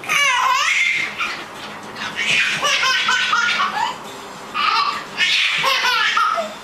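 Baby laughing hard in belly laughs, in three bouts with short pauses between them.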